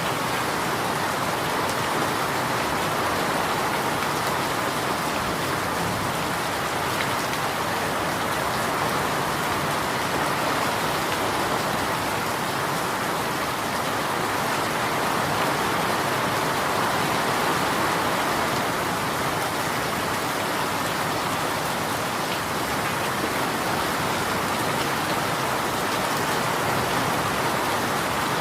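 Steady rain falling on a surface: a dense, even hiss of raindrops with no distinct drips or thunder.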